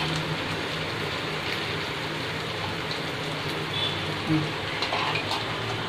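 Mutton frying in a pan on a gas stove, a steady sizzle, with a few light clicks of a spoon against the pan in the second half as curd is added.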